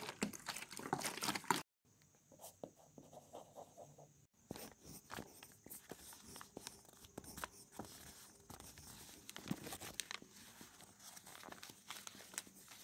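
Black pen scratching and tapping on paper in short, irregular strokes while fine detail is inked. A louder stretch of crackling rustles fills the first couple of seconds, and the sound cuts out briefly twice.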